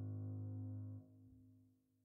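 Background music of steady held tones, which drops sharply about a second in and fades away.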